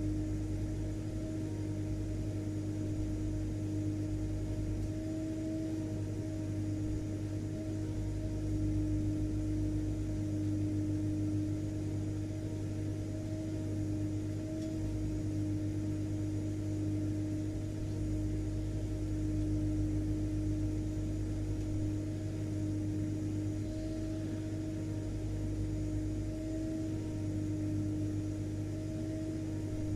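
Vacuum cleaner running steadily: a constant motor drone with a steady pitched tone over a hiss of air, holding the same pitch and level throughout.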